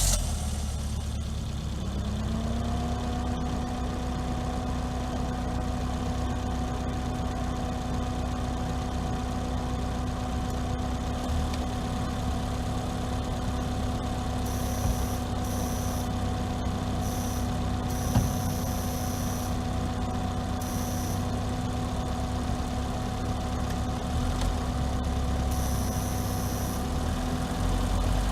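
Volvo S40 engine idling steadily just after a start, its tone rising and settling about two seconds in.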